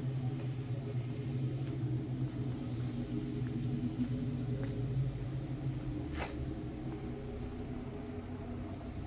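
A steady low mechanical hum, like an engine or machine running nearby. It drops to a lower pitch after about six seconds, just after a single sharp click.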